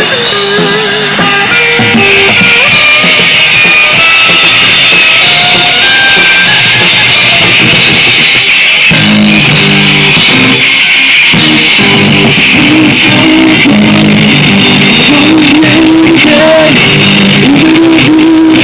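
Live rock band playing loudly: electric guitars and a drum kit, with a voice singing over them in the second half.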